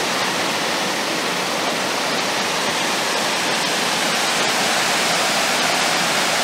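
Water rushing steadily over the rock ledges of a small river cascade.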